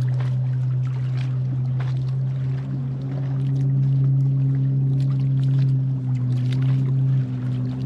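A boat engine running with a steady low drone, with small splashes of water close by.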